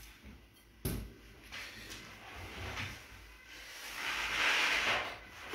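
A single sharp knock about a second in, then a soft hiss that swells and fades near the end: kitchen handling sounds around a stockpot on the hob.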